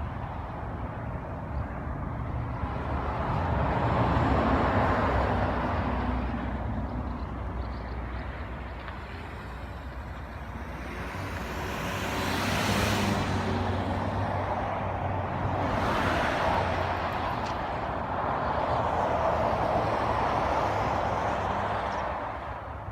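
Expressway traffic with a steady rumble and tyre hiss, rising and falling as vehicles pass, the loudest pass about halfway through.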